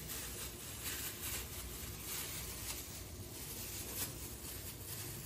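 Quiet, faint handling sounds of plastic-gloved hands scooping sticky cookie dough out of a steel bowl and setting it on a stainless steel tray, with a few soft light taps.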